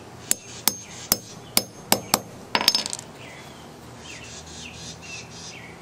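A hammer tapping a grommet-setting tool on its anvil, about seven sharp metallic strikes over some two and a half seconds, the last few quick and close together, flaring a metal grommet and pressing it shut through the awning fabric. Birds chirp in the background once the hammering stops.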